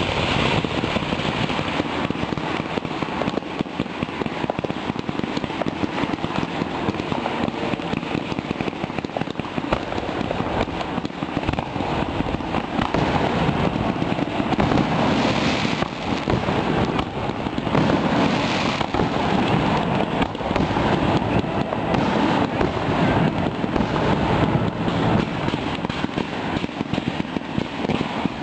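Fireworks display: a dense, continuous mass of crackling and popping from bursting fireworks, with no pause.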